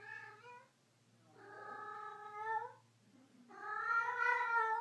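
Domestic cat meowing in long, drawn-out calls: one trailing off at the start, then two more, each over a second long.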